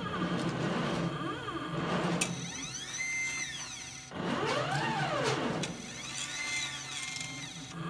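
Stepper motors of a CNC plasma cutting table whining in several rising-then-falling glides as the torch gantry speeds up and slows down between moves, over a steady hum and hiss from the cutting.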